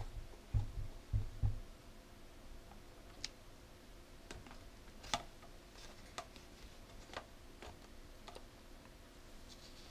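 Plastic parts of an Epson inkjet printer being handled by a gloved hand. There are a few low, soft thumps in the first second and a half, then scattered light clicks and taps, about eight of them, over the following several seconds.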